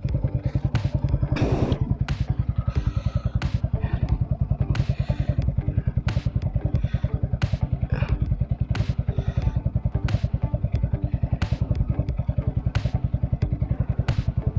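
Yamaha R15 V2's single-cylinder four-stroke engine idling steadily, with even, fast exhaust pulses. A sharp tick repeats about every two-thirds of a second.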